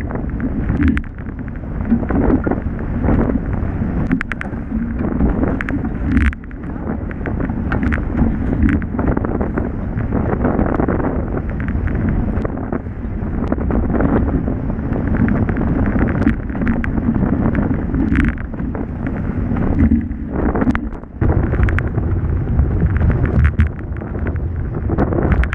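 Wind buffeting the microphone on board a Nacra F16 racing catamaran under sail, with water rushing past the hulls. The noise surges and dips irregularly and is broken by occasional sharp hits.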